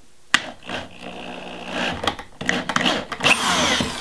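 Cordless drill running in two bursts, driving fasteners into a wooden block, with a sharp click just before the first burst.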